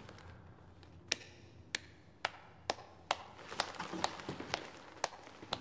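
Footsteps on a hard floor, sharp and evenly spaced at about two steps a second, starting about a second in, over a faint low hum.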